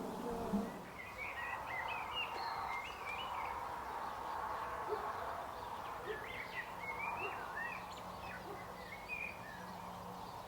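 Birds singing: quick, twittering high phrases in two spells, over faint steady background noise.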